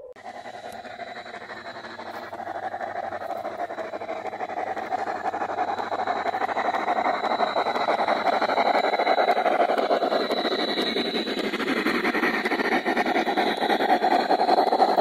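G scale model steam locomotive running along garden track toward the microphone, a rapid rhythmic chuff over the noise of its wheels on the rails, growing steadily louder as it nears.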